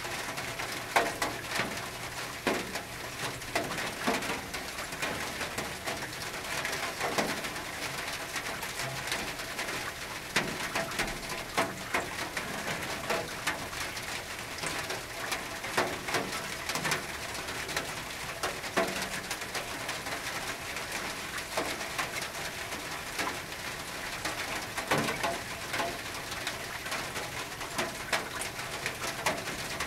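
Rain on a tin roof: a steady patter with irregular sharper drops striking the metal, and a bird calling in the background.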